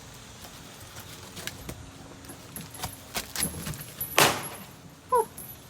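Light scattered clicks and rustling, then a single sharp bang about four seconds in: a small fused firecracker going off inside a paint-filled container.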